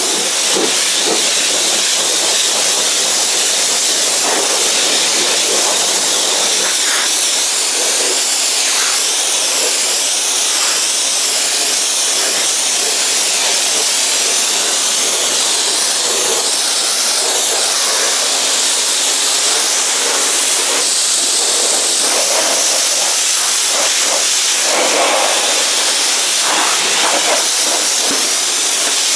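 Karcher K3 Silent pressure washer spraying water onto a car's body: a steady, loud hiss of the jet that wavers slightly as the spray moves.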